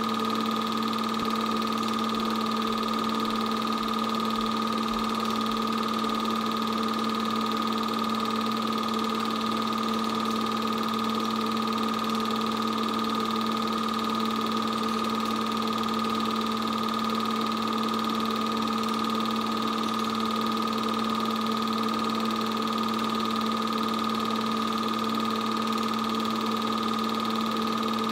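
Steady motor hum of an 8mm film projector running, with a constant hiss; it holds one unchanging pitch through the picture cuts.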